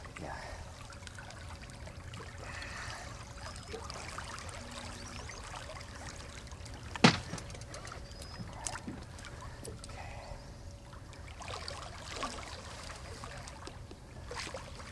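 Water lapping and trickling around a boat's side, over a faint steady hum, with scattered small ticks and one sharp knock about seven seconds in.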